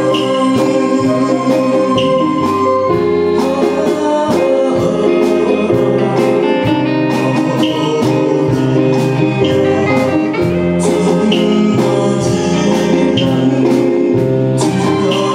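A man singing into a microphone, backed by a live orchestra, over a steady beat.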